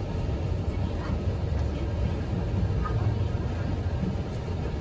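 Odakyu Romancecar VSE (50000 series) electric train running along the track, a steady low rumble of wheels and running gear heard from inside the front observation car.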